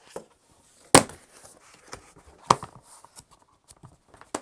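Handling noise from a portable monitor and its flip cover being picked up and moved: three sharp knocks, the loudest about a second in, with light rustling between them.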